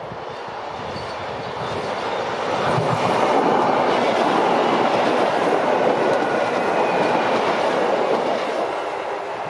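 Belgian SNCB classic electric multiple unit ("klassiek motorstel") passing close by on the line, wheels running on the rails. The noise builds over the first three seconds, holds while the carriages go by, and eases near the end as the train draws away.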